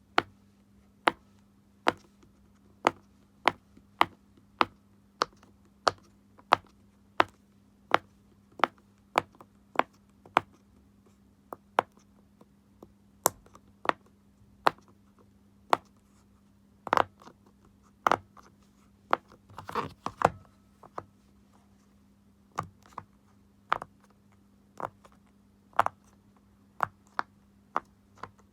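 Silicone Pop It fidget toy, its bubbles pushed through one at a time: a steady run of short, sharp pops about every two thirds of a second, with a quicker flurry of several pops a little past the middle.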